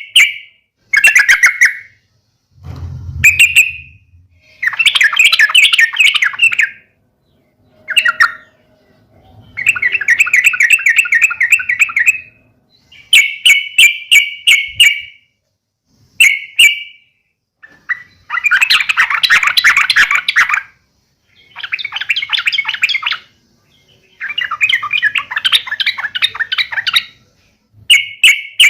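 Young yellow-vented bulbul (trucuk) giving fast, harsh chattering calls in repeated bursts of one to three seconds: the aggressive fighting call of a juvenile, used to provoke other bulbuls into answering. A low thump about three seconds in.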